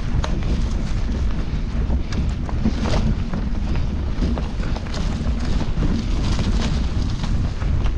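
Mountain bike riding slowly over a dry dirt singletrack, picked up by a handlebar-mounted camera: a steady low rumble of wind and vibration on the microphone, with scattered clicks and crackles from the tyres on leaves, twigs and stones.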